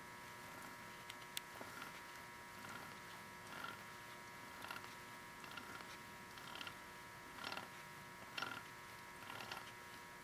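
A 1979 Triumph Spitfire 1500 differential, out of the car, turned slowly by hand and heard through its casing: faint creaks and light clunks about once a second from the gears and bearings inside. These are the clunks that give the unit its 'clunk clunk'.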